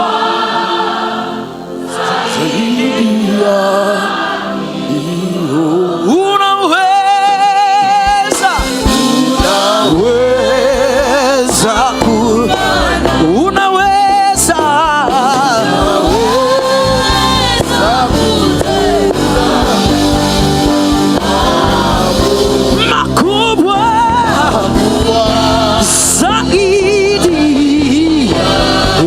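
Live gospel worship music: long sung notes with vibrato over the band, with choir voices. The low end of the band fills in and the music gets louder about six to eight seconds in.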